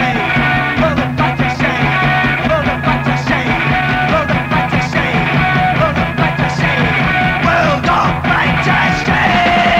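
Punk rock band playing electric guitar and drums, with sliding lines over the beat. Near the end one long note is held.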